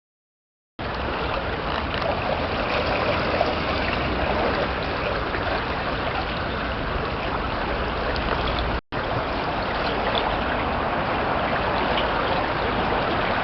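Steady rushing of flowing water, with a low rumble underneath; it starts abruptly about a second in and drops out for an instant about nine seconds in.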